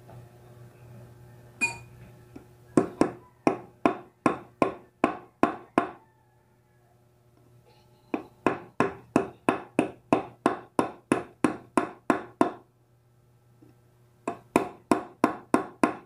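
A hammer tapping on metal in steady blows, about three a second, each with a short ring. There are three runs of blows separated by pauses, with a single blow before the first run.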